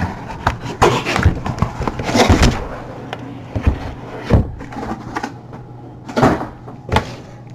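Sealed trading-card boxes being lifted out of a cardboard shipping case and set down on a table: cardboard scraping and rustling, with a series of dull knocks as each box lands.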